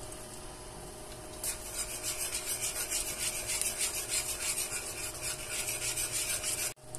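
Metal spoon stirring a thin sauce in a metal wok, scraping across the pan bottom in quick, even strokes. The stirring starts about a second and a half in and cuts off suddenly just before the end.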